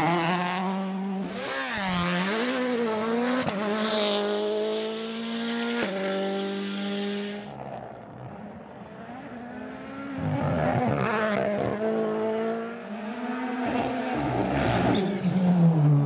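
Rally1 rally cars, a Ford Puma and a Toyota GR Yaris, driven flat out, their turbocharged 1.6-litre four-cylinder engines revving up and down through gear changes across several passes. The engine sound falls away for a couple of seconds around the middle, then builds again as another car passes near the end.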